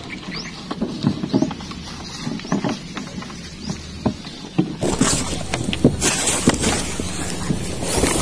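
Scattered crackles and rustles of grass and clothing rubbing close to the microphone. They turn into a louder, hissing rustle about five seconds in.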